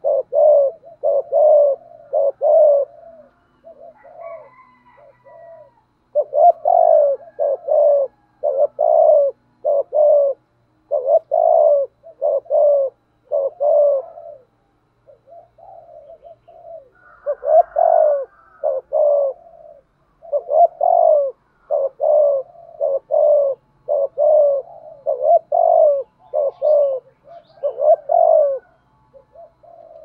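Spotted dove cooing: short low coos, about two a second, in runs of three to five notes with brief pauses between runs. This is the quick 'gù thúc' cooing of a caged decoy dove.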